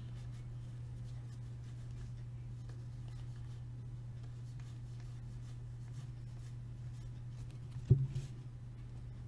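Hockey trading cards being flipped through by hand, faint paper rustles and flicks over a steady low hum. Near the end a stack of cards is set down on the table with one sharp thump.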